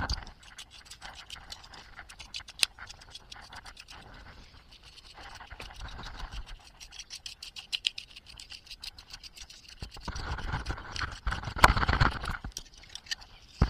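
Small brush scratching and scrubbing across a PlayStation 3 Slim power supply circuit board in many quick light strokes. About ten seconds in, louder rustling and knocks of the board being handled.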